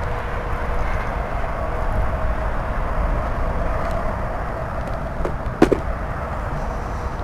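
Steady drone of road traffic with a low rumble, broken about five and a half seconds in by a sharp knock, with a fainter click just before it.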